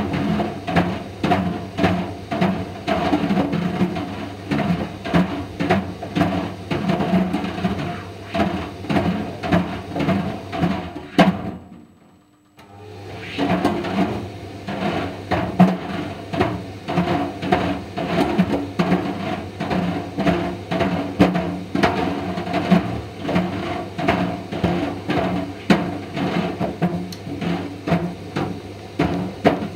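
Indesit IDV 65 tumble dryer running, its motor humming under a fast, irregular knocking of Mister Steamy plastic dryer balls tumbling in the drum. About twelve seconds in, the dryer stops for a moment, then starts up again and the knocking resumes.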